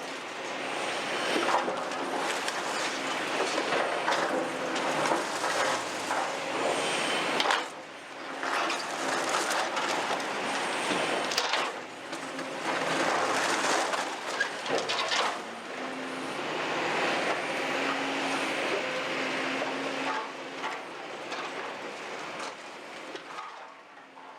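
CAT 352 excavator working its bucket through demolition rubble: continuous crunching, scraping and clattering of broken concrete and debris over the steady hum of the diesel engine, fading out near the end.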